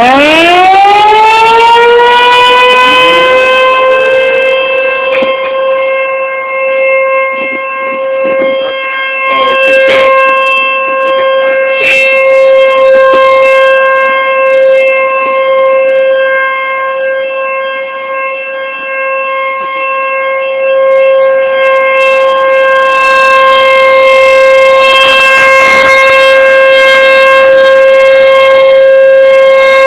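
Nuclear emergency outdoor warning siren winding up fast from a low pitch and then sounding one long steady tone, loud and wavering a little in volume.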